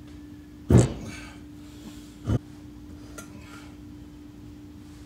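Two metal-on-metal clanks of a socket wrench and breaker bar on a Ford 8.8 rear differential's pinion nut, a loud ringing one just under a second in and a smaller one about a second and a half later, as the nut is worked by hand for tightening.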